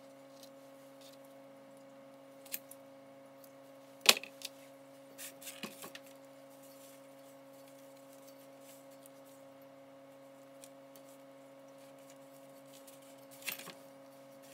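Scattered sharp clicks and knocks as a steel starter field housing and small parts are handled on a wooden workbench. The loudest knock comes about four seconds in, with a few lighter clicks after it and one more near the end, all over a steady low electrical hum.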